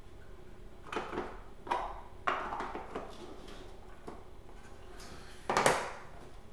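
A few short handling noises, knocks and rustles, the loudest about five and a half seconds in, over a low steady room hum.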